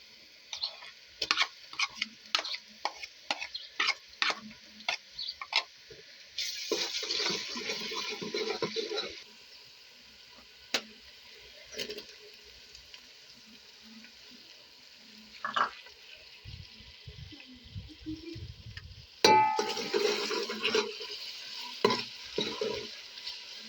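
Cooking sounds at a pan: a utensil clicking and scraping repeatedly against the pan while stirring, and two stretches of hissing frying. Just before the second hiss, a pan or lid rings briefly.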